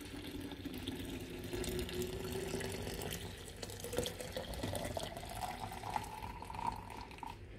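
Warm water poured from a kettle into a glass carafe: a steady splashing pour whose pitch rises as the carafe fills, stopping shortly before the end.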